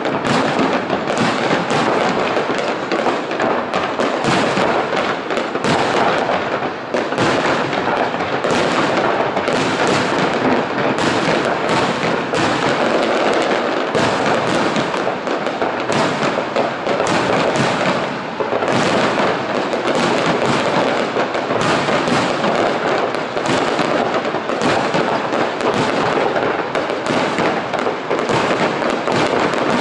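Fireworks display: aerial shells bursting and crackling one on top of another in a dense, unbroken barrage of sharp pops and bangs, with no let-up.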